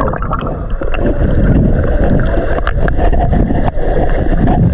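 Sea water sloshing and splashing right against the microphone, with heavy low buffeting and scattered sharp splashes.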